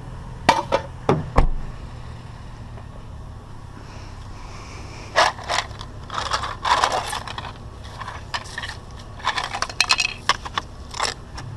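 Scrap being handled: a beat-up ceiling fan knocked and scraped about, with scattered sharp clanks early on and two longer stretches of clattering and scraping later, over a steady low hum.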